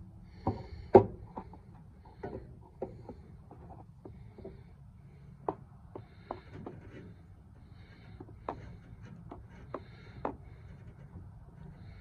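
Scattered knocks and clicks of a black gas pipe nipple being fitted and threaded by hand into the inlet of a furnace gas valve, with two louder knocks about a second in.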